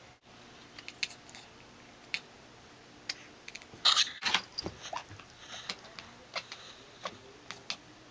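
A kitten making scattered, irregular sharp clicking sounds with her mouth while chasing a laser, with a brief louder scuffle about four seconds in.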